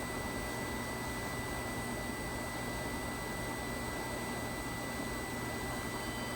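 Steady hiss with a low hum under it and a thin, steady high tone.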